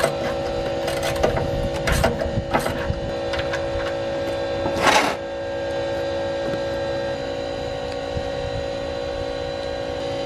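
Ratchet and socket on an oil drain plug, a few sharp clicks in the first three seconds as the plug is loosened, then a short burst of noise about five seconds in as it comes free. A steady hum sits underneath.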